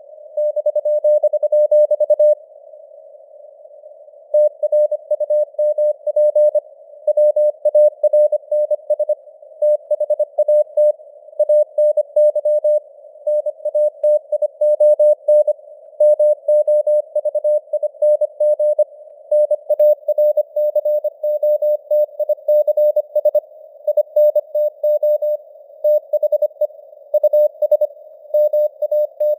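Morse code at 25 words per minute: a single steady tone keyed on and off in quick dots and dashes, sent over narrow hissing noise like a radio receiver's, the signal varying in strength as it fades (simulated QSB).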